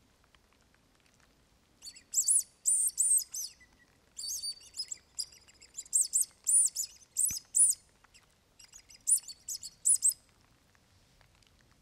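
Plastic mouse-squeak predator call (myškovačka) blown in several bursts of short, very high squeaks, each rising and falling in pitch, with a clear, pure and fairly loud tone. The squeaks imitate a mouse to lure foxes and other predators.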